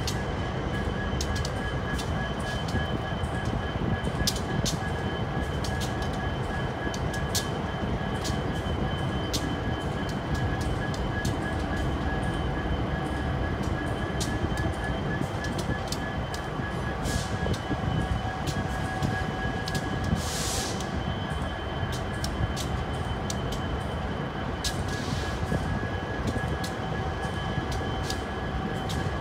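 Union Pacific intermodal freight train rolling slowly past: a continuous low rumble of the cars, steady high-pitched tones from the wheels, and irregular sharp clicks of wheels over the rail joints.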